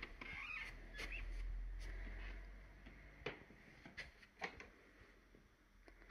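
Handling noise from a handheld phone camera being carried and panned around a room: a low rumble for the first few seconds, then a few soft knocks.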